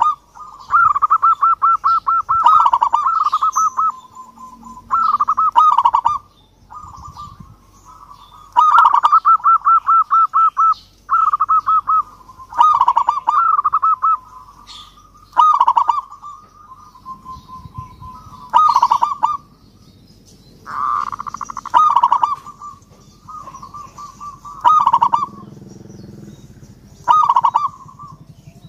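Zebra dove (perkutut) cooing: a series of repeated phrases, each a quick run of rolling notes at one steady pitch, with short pauses between.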